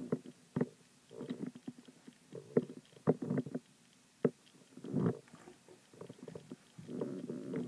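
Rabbits moving about on a floor: irregular soft knocks and scuffles, with a few sharper taps.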